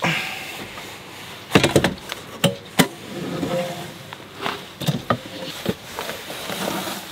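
Knocks and clunks of a metal electronics box and its fittings being handled and worked into a wooden cabinet. A cluster of sharp knocks comes near two seconds in, with more scattered ones later.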